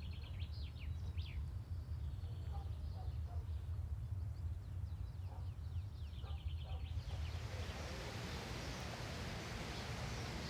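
Outdoor background of small birds chirping over a steady low rumble; about seven seconds in, the chirps give way to an even hiss.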